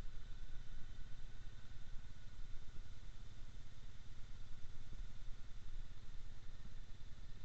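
Avant 218 compact loader's engine running steadily as the machine drives slowly, a low rumble with a thin steady whine above it.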